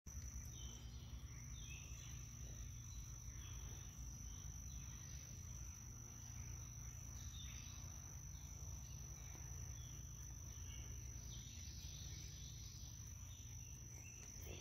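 Summer woodland ambience: a steady, high-pitched insect trill, with scattered short chirps and a low rumble underneath.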